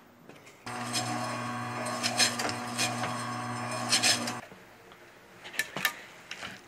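Electric deli meat slicer running for about four seconds: a steady motor hum with scraping strokes as the circular blade cuts smoked beef into thin slices. It starts and cuts off suddenly, followed by a few light clicks.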